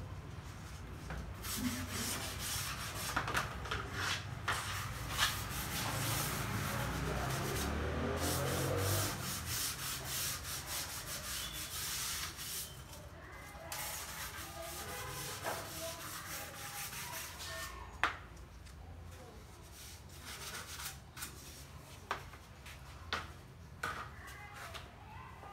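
A cloth rubbing and wiping along wooden flooring planks, with scattered knocks and clacks as the planks are handled. The rubbing is densest in the first half, then gives way to occasional knocks.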